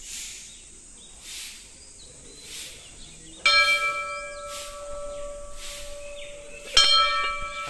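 Large brass temple bell hanging over a shrine doorway, rung twice by hand by swinging its clapper, about three and a half seconds in and again about three seconds later. Each strike rings on with several clear tones that slowly fade.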